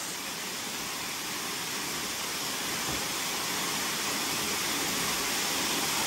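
Waterfall pouring into a rock pool: a steady rush of falling water, growing slightly louder toward the end.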